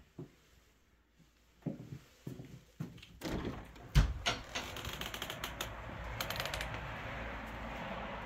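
A balcony door being opened, with a sharp knock about four seconds in that is the loudest sound, followed by a quick run of clicks and taps. A steady outdoor hiss comes in as the door opens.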